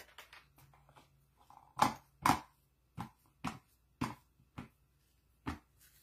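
A banana being peeled by hand over a plastic tub: a series of about seven short, crisp clicks and rustles, roughly every half second, starting about two seconds in.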